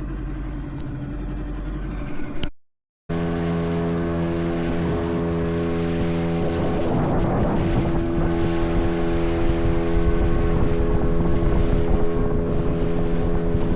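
Motorboat engine running at a steady speed, a constant hum with many overtones. There is a short break about three seconds in, and a brief rush of noise about seven seconds in.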